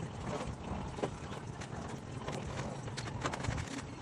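Irregular light clicks and knocks of hands and tools working on a car during a radiator replacement, over a steady low background hum.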